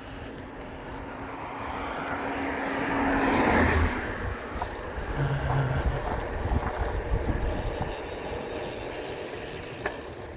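Engine noise of a passing motor vehicle, swelling to a peak about four seconds in and then dropping away, with a single sharp click near the end.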